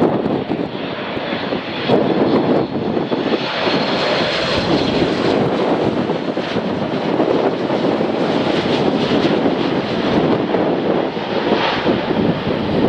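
Boeing 737 airliner's twin jet engines on landing approach, passing low overhead: a loud jet rumble that swells about two seconds in and then holds steady, with a high fan whine over it for a few seconds.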